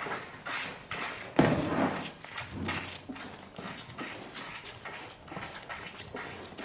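A calf suckling at a cow's udder: irregular sucking noises, the loudest about a second and a half in, then smaller repeated ones.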